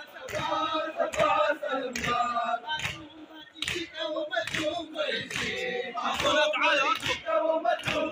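A group of men chanting a mourning lament (noha) in unison, with sharp slaps of hands striking chests (matam) keeping a steady beat about once or twice a second.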